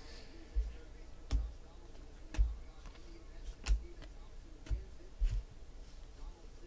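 Trading cards being sorted by hand and set down on a tabletop: six sharp taps, each with a soft low thump, about one a second.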